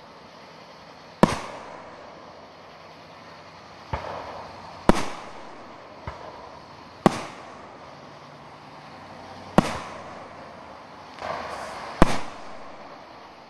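Aerial fireworks shells bursting overhead: a sharp bang every one to three seconds, about eight in all, a few of them softer, each trailing off in a brief echo.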